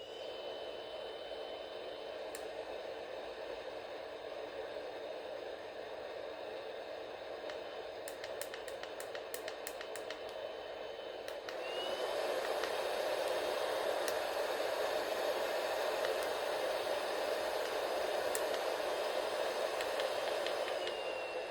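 JDC 8208 hot air gun blowing steadily with a thin motor whine. A run of clicks comes about eight to eleven seconds in, then the airflow steps up louder, the whine rising slightly, and stays at the higher setting.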